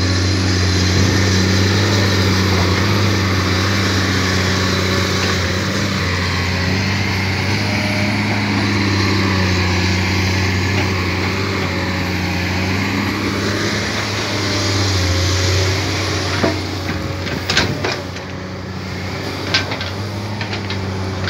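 Diesel engine of a Komatsu hydraulic excavator running steadily with a low, even hum. A few sharp knocks come near the end.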